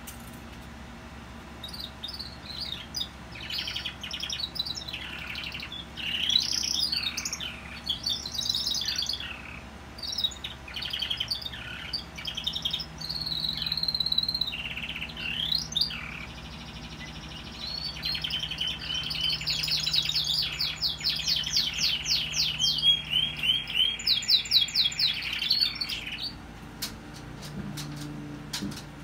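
Domestic canary singing a long song of varied trills and warbled phrases, with a stretch of fast, evenly repeated notes in the second half; the song stops a few seconds before the end. The birds have taken up singing again after their moult.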